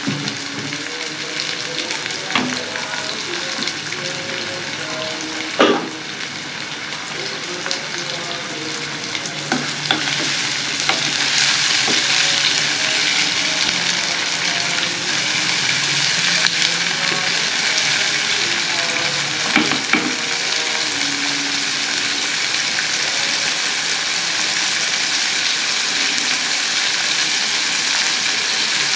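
Chopped onions frying in hot oil in a pan: a steady sizzle that grows louder about ten seconds in, with a few knocks as they are stirred.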